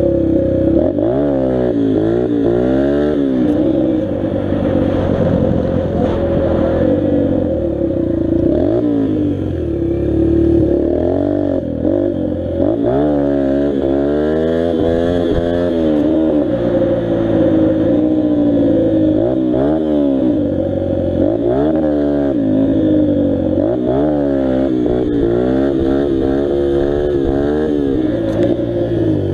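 Dirt bike engine being ridden, its pitch rising and falling again and again as the throttle is opened and closed.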